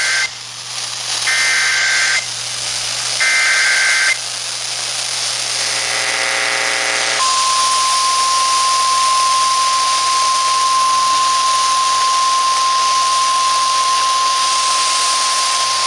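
Emergency Alert System activation in NOAA Weather Radio style. First come bursts of the SAME digital header, a shrill two-pitch data screech about a second long each: the end of one, then two more. A short buzzy tone follows. Then comes the single steady 1050 Hz warning alarm tone, held for about nine seconds, which signals a flash flood warning.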